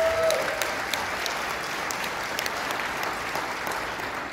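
Audience applauding, many claps fading toward the end, with a single held tone ringing out over the first second.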